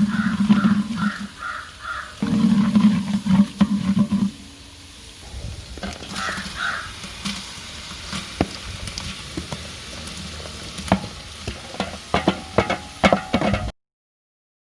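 Crows cawing in short repeated calls over a low hum that stops about four seconds in. After that come scattered clicks and scrapes of a ladle stirring frying food in a large cooking pot, and everything cuts off suddenly near the end.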